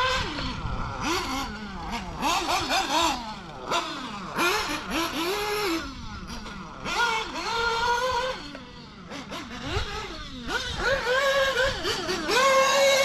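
Small nitro RC car engine, a Ninja nitro engine, revving up and dropping back over and over as the car is driven around the track on and off the throttle. It holds a longer high-pitched run near the end.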